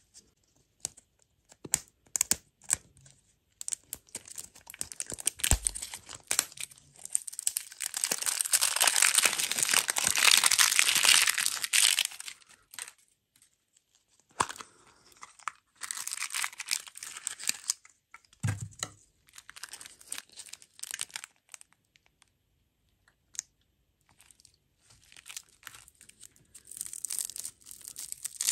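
Printed candy wrapper being torn and peeled off a ball-shaped lollipop toy shell, crinkling in bursts. A few light clicks come first, the longest and loudest stretch of crinkling falls in the middle, and shorter bursts follow after pauses.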